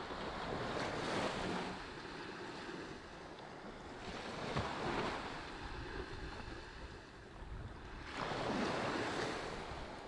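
Small waves breaking and washing up a sandy beach, the surf swelling three times about four seconds apart, with a low rumble of wind on the microphone.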